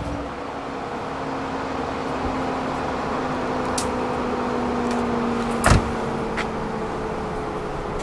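The driver's door of a Mercedes-AMG C63 S coupe is pushed shut with a single sharp thud a little past halfway, over a steady hum carrying a faint held tone that sinks slightly in pitch, with a few small clicks.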